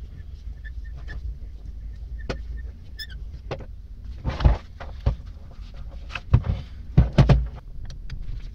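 Rusty steel bench vise parts being handled and worked loose: scattered metal clicks and knocks, with louder clattering scrapes a few times in the second half as a screwdriver is pried against the collar at the spindle end. A low steady hum runs underneath.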